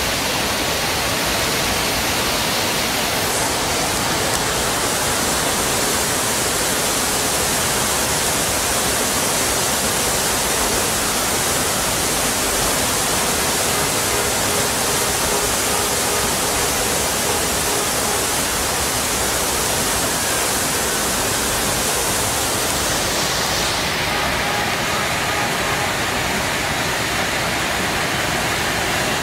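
Torrent of muddy floodwater rushing through a street: a loud, steady wash of noise with no breaks, its hiss dulling slightly near the end.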